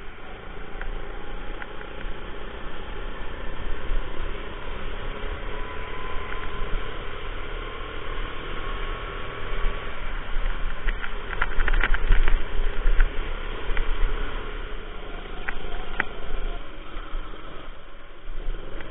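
Rental go-kart's small engine running under throttle, mixed with heavy wind rush and rumble on the onboard camera. A quick cluster of sharp knocks comes about eleven to twelve seconds in, with a few more later.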